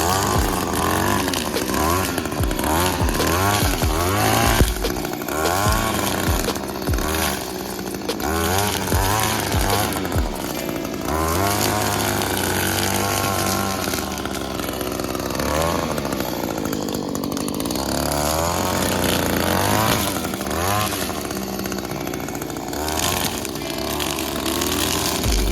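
Small two-stroke engine revving up and down over and over, with its pitch rising and falling every second or so.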